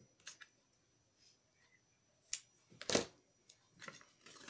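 Handling of a tape roll and card stock on a cutting mat: a few small clicks, a sharp click, then a knock a little before three seconds in as the roll is set down, followed by paper rustling.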